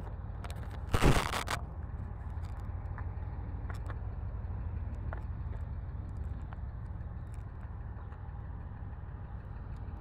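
Handling noise of an action camera being picked up: one loud brief scrape about a second in, then a steady low rumble with a few faint ticks.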